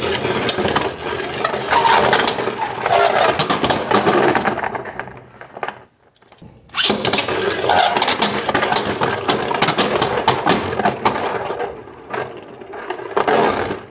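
3D-printed Beyblade Burst tops spinning and clattering against each other in a plastic stadium: a fast, dense rattle of hits and scrapes. It stops briefly about six seconds in, then starts again for a second bout.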